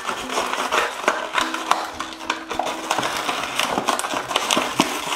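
Cardboard toy box being torn open and its packaged contents pulled out: a busy run of cardboard tearing and crinkling of packaging, with many small crackles and clicks. Faint music plays underneath.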